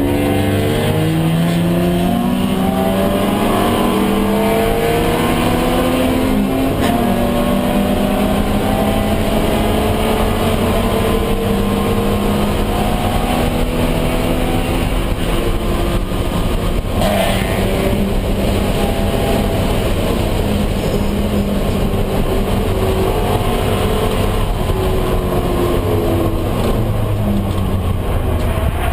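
Race car engine heard from inside the cabin, pulling hard with its pitch climbing, then dropping at gear changes, again and again, over steady road and wind noise. There is a brief knock about two-thirds of the way through.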